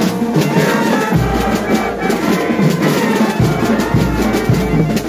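A band with brass and drums playing the school hymn.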